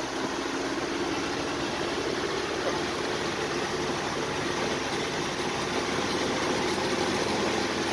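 The 5.7 Hemi V8 in a 1941 Dodge WC truck running at a steady cruise, with tyre and wind noise, heard from inside the cab as a steady drone.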